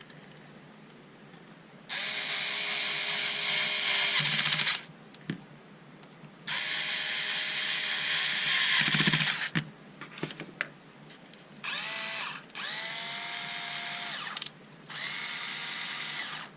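Cordless electric screwdriver driving the housing screws of a small cordless screwdriver back in, in five separate runs with short pauses between. The first two runs last about three seconds each, and three shorter runs follow near the end, the motor's pitch rising as each one starts.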